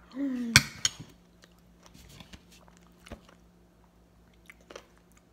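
A short hum with the mouth full and a sharp click about half a second in, then quiet chewing of a spoonful of yogurt parfait, with small scattered clicks.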